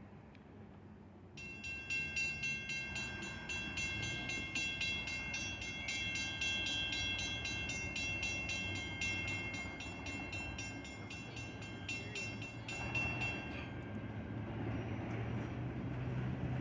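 A bell ringing rapidly and evenly from about a second and a half in until a few seconds before the end. Under it, the low rumble of an ALCO RS-32 diesel locomotive's V12 engine grows louder as the locomotive approaches.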